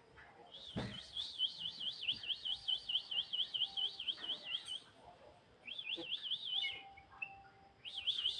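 Pet songbird whistling a fast run of rising notes, about four or five a second, in three bursts: a long run, a short one about six seconds in, and another starting near the end.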